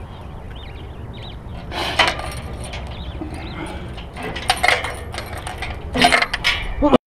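Keys jingling and a padlock clinking against a metal gate as it is unlocked: several sharp metallic clinks, the loudest cluster near the end, then the sound cuts off suddenly.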